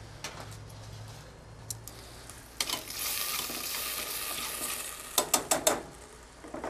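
Wine sizzling as it reduces at very high heat in a saucepan on a barbecue side burner, deglazing the pan: the alcohol is boiling off. The sizzle swells loud about two and a half seconds in, and near the end a few quick clinks of a utensil against the pot follow.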